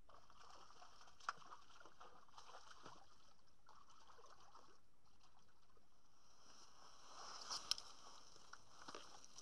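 Faint water sloshing and trickling, coming and going in patches, with two sharp clicks, one about a second in and one later on.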